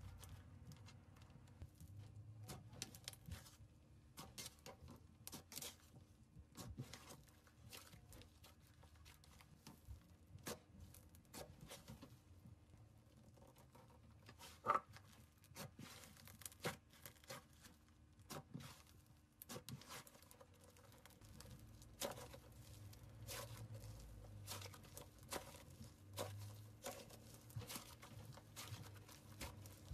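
Hands squeezing, folding and stretching soft fluffy slime: faint, irregular crackles and small pops as air pockets burst, with a louder pop about halfway through.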